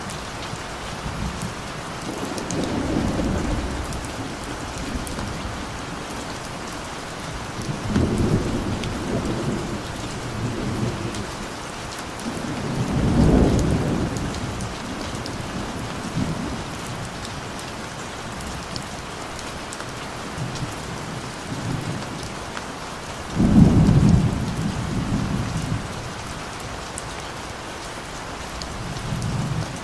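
Steady rain falling with scattered drops ticking, while thunder rumbles low about five times, each roll swelling and fading over a few seconds. The loudest roll starts suddenly about three quarters of the way through.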